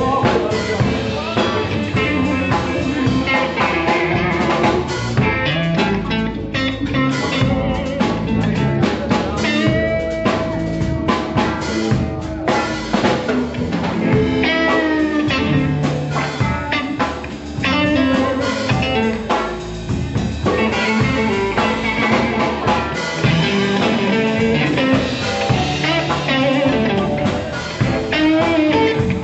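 Live blues band playing an instrumental passage: electric guitar over drum kit, bass and keyboard, with no singing.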